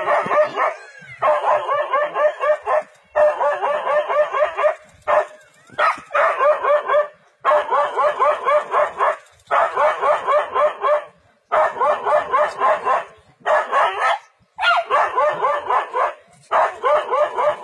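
A dog barking in quick runs of sharp, high-pitched barks, several a second, each run lasting a second or two with short pauses between.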